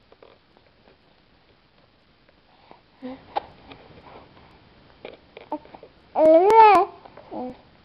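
Breastfeeding infant cooing and babbling: a few short soft coos, then a louder drawn-out coo about six seconds in that rises and falls in pitch, and one more short coo near the end.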